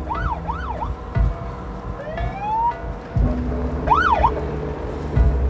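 Short bursts of a police car siren: two quick rising-and-falling whoops at the start, a single rising sweep about two seconds in, and another whoop about four seconds in, over a low steady hum.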